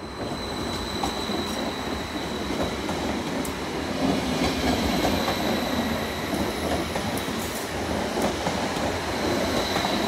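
A Vy multiple-unit passenger train running past close by, its wheels rumbling on the rails with scattered clicks and a thin steady high whine. It gets louder about four seconds in, as the cars pass nearest.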